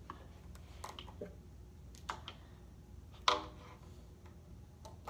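A few scattered light taps and clicks of toy animal figurines being set down and moved on a hard stone ledge, the loudest about three seconds in with a short ring.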